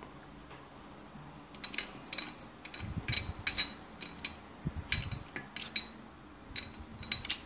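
Light, irregular metallic clicks and ticks of a thin scalpel blade prying at a stuck circuit board inside a metal microphone body, with a few soft handling knocks.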